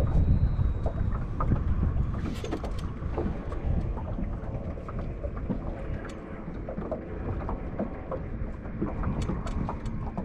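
Wind buffeting the microphone as a low rumble, strongest in the first couple of seconds, with scattered small clicks and knocks from handling gear in a small fishing boat.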